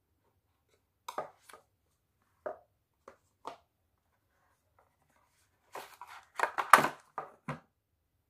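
Cardboard phone packaging being handled: a few short scrapes and taps of the box, then a denser run of scraping and rustling near the end as the phone and its tray are lifted out of the box.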